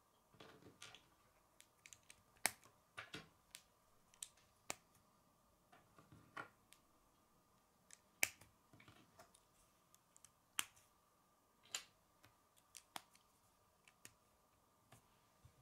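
K'nex plastic rods and connectors clicking and snapping together as pieces are fitted by hand: irregular sharp clicks, a few louder snaps among them.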